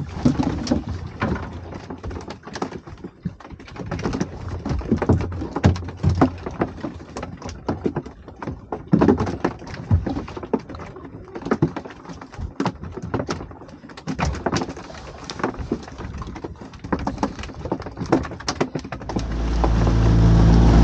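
Freshly landed mackerel flapping and knocking on the boat's deck as they are unhooked, with irregular knocks and rattles of tackle and the fishing line. Near the end a boat engine comes in, running steadily and loud.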